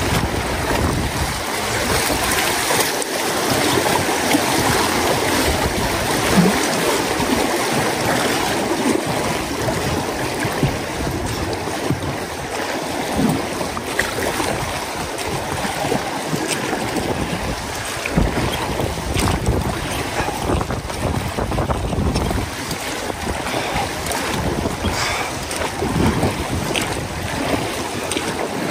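River water rushing and lapping against a boat drifting down the current, with gusts of wind buffeting the microphone.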